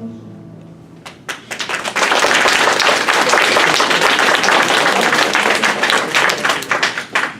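A guitar chord dies away, then an audience starts clapping about a second in, a few claps at first. The clapping grows into steady applause that falls off just before the end.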